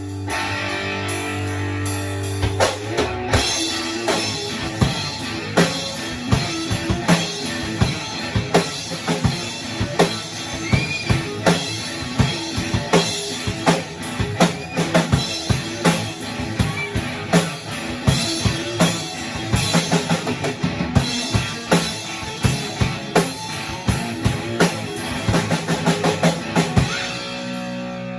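Rock band music jamming on a few chords: a drum kit comes in about two and a half seconds in and keeps a steady beat over guitar chords.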